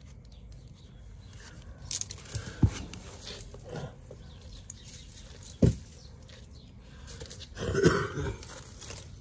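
Dry dead stems and leaves rustling and crackling as gloved hands pull at them in a soil bed, loudest near the end, with a few dull thumps earlier on.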